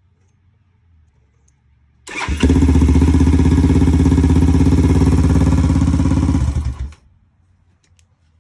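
Honda 400EX quad's single-cylinder four-stroke engine catching about two seconds in, running steadily for about four seconds, then cutting off abruptly. It starts up by itself when the battery is hooked up, without the push button, which the owner puts down to the new wire harness being rigged up wrong.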